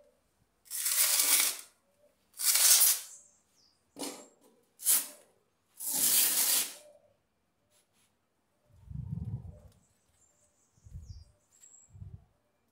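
Dry, gritty potting fertilizer mixed with coarse sand, poured and scattered into a plant pot in five short rushes of noise. Near the end there are three dull low thumps as the pot and soil are handled.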